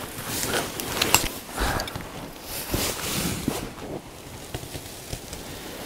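A stuck paddle being worked free in shallow water beside a small boat: irregular swishes and splashes of water with a sharp knock about a second in, quieter over the last couple of seconds.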